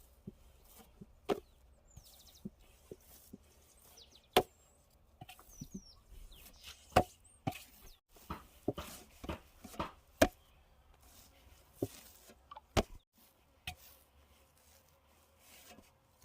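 Irregular sharp knocks and clicks of food preparation, scattered unevenly with a few louder strikes several seconds apart.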